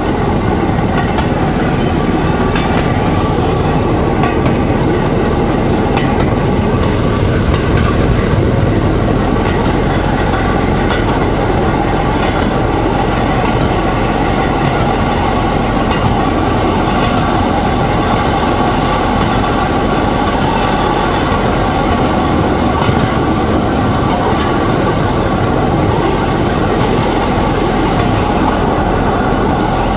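Motor draisine running along a narrow-gauge railway track: a steady engine drone with the wheels rattling and clicking over the rough rails and joints.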